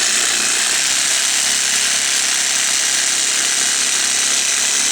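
Black & Decker single-speed jigsaw's electric motor running steadily at full speed, a loud, even whir. The motor had been seized and has just been freed with WD-40.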